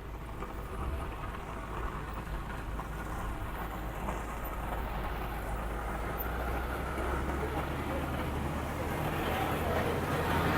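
Engine of a heavy road-construction machine running steadily, gradually growing louder toward the end.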